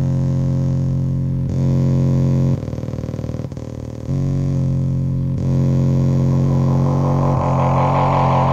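Eurorack modular synthesizer playing a low, steady drone rich in overtones, its texture shifting abruptly every second or two, with a quieter stretch in the middle. From about six seconds in, a buzzy, rippling higher layer swells in over the drone.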